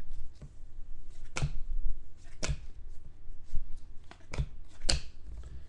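Trading cards being handled and thumbed through, with a string of sharp card snaps and clicks, four of them louder than the rest.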